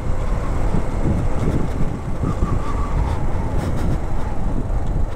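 Yamaha YBR125G's single-cylinder engine running steadily while the motorcycle cruises down the road, mixed with wind noise on the microphone.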